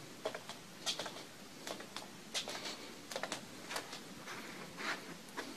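Irregular light clicks and taps, a dozen or so, scattered over a faint hiss.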